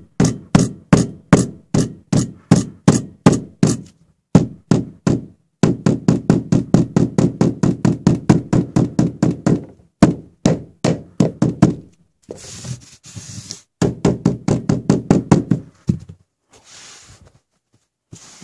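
Soft-faced mallet hammering a metal carpet liner down over the carpet edge at a doorway, in steady knocks. They come about three a second at first, then in faster runs of about five a second. In two short pauses a hand brushes over the carpet pile.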